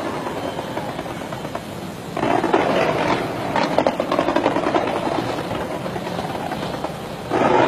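Fireworks going off in a dense, continuous crackle, surging louder about two seconds in and again near the end.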